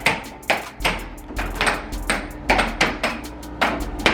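Air hockey puck clacking against the players' mallets and the table's rails in a fast rally, a rapid irregular run of sharp hits, about three a second. A steady low hum runs underneath.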